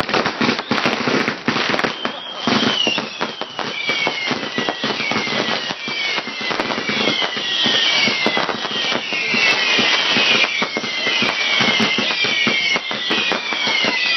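Fireworks going off without a break: dense crackling and popping, with repeated whistles that fall in pitch, the whistles growing more frequent toward the end.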